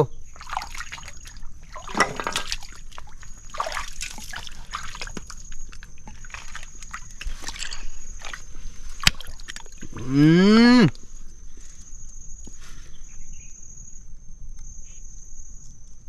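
Water sloshing and splashing in a shallow tidal pool as a giant mud crab is worked at in the water, over a steady high insect whine. About ten seconds in, a loud drawn-out call rising in pitch, about a second long.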